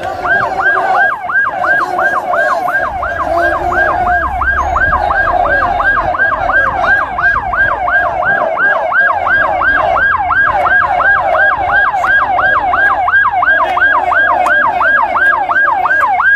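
Ambulance siren in a fast yelp, its pitch sweeping up and down about three times a second, starting just after the opening.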